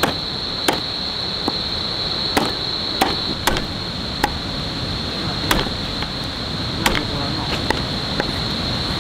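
Chopping on a wooden cutting board: about ten sharp knocks at uneven intervals. Insects chirr steadily and high underneath.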